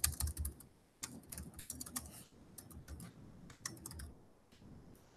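Typing on a computer keyboard: quick runs of keystrokes with short pauses about a second in and just past two seconds, thinning out to a few taps near the end.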